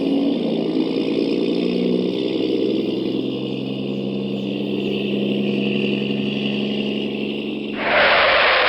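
Motors of radio-controlled model construction vehicles running steadily with a droning hum that shifts slightly in pitch. Near the end a loud hiss cuts in over it.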